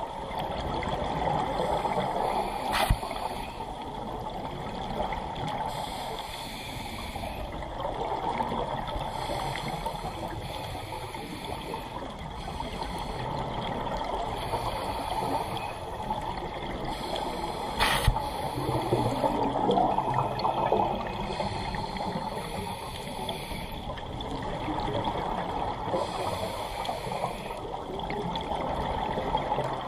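Scuba regulator breathing and exhaled bubbles underwater, bubbling in swells that rise and fade every few seconds with each breath. Two sharp clicks, one about three seconds in and one about eighteen seconds in.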